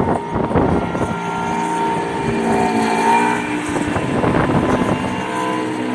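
CNC machine running with a steady whine of several tones that shift slightly in pitch, with a few sharp knocks about half a second in.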